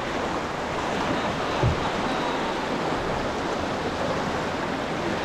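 Whitewater rushing and churning around a canoe surfing a standing river wave, a steady noise of breaking foam. A brief low thump comes about a second and a half in.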